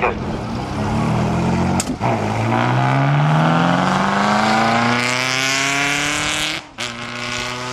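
Historic racing car engines accelerating, with one long rising engine note lasting several seconds. Brief breaks come about two seconds in and near the end, and after the second one an engine holds a steadier note.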